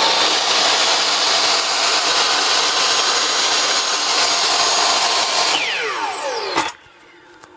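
DEWALT DW715 12-inch compound miter saw running freely with no cut, its motor and blade giving a loud, steady whine. A little before six seconds in it is switched off and winds down with a falling whine, ending in a short knock.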